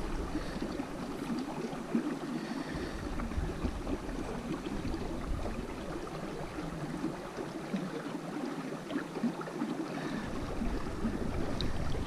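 Shallow mountain stream running over rocks close by, with small splashes of a hand moving in the water.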